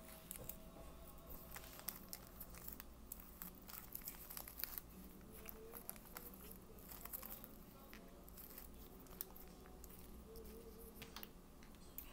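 Faint, scattered crinkling of a clear cellophane treat bag as curling ribbon is wrapped and tied around its neck.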